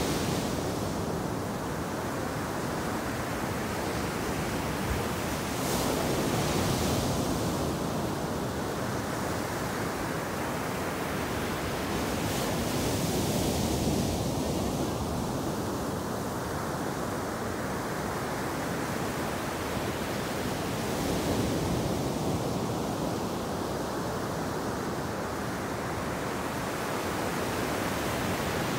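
Ocean surf: waves breaking and foaming in the shallows, a continuous rush that swells every several seconds as each wave crashes.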